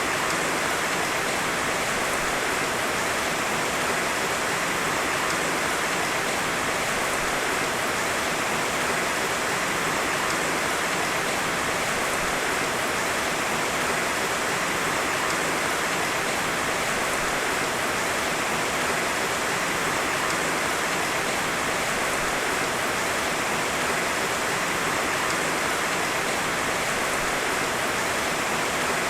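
Heavy rain falling steadily as a dense, even hiss, with no thunder.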